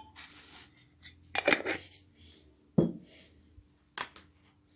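A spoon and containers clicking and knocking together three times as oils are spooned into a mixing bowl.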